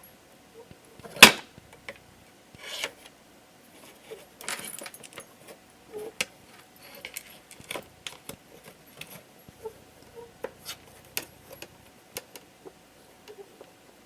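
Wooden organizer pieces clattering and knocking together as they are handled and fitted, with one sharp knock about a second in, then a short rustle and scattered lighter clicks.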